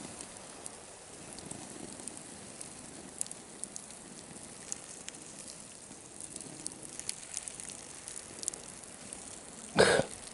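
Faint, scattered crackles and ticks from the still-hot ash and embers of a stone campfire ring, over a soft steady hiss. A short loud burst comes near the end.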